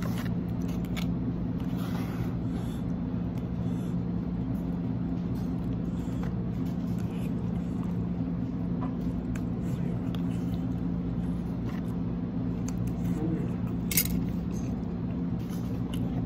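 Steady low machine hum, with light clicks and taps of a plastic food tub and utensil while eating; one sharper click about fourteen seconds in.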